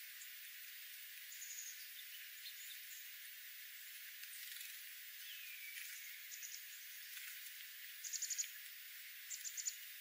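Small ground-feeding songbirds, dark-eyed juncos and sparrows, give high, thin chip calls over a steady hiss, with a quick run of four or five chips about eight seconds in and another a second and a half later.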